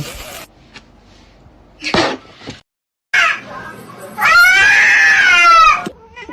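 A cat meowing: a short cry just after three seconds in, then a long, drawn-out meow that rises and falls in pitch.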